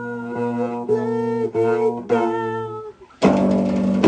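Song music with plucked guitar and held pitched notes. About three seconds in it drops out briefly, then a fuller, louder accompaniment comes in.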